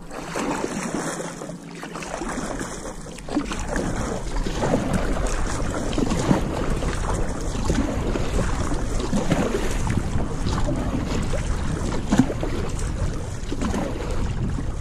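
An offshore kayak being paddled across a lake: water splashing and washing along the hull, with wind buffeting the microphone.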